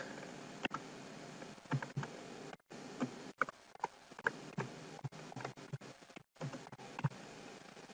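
Typing on a computer keyboard: faint, irregular key clicks.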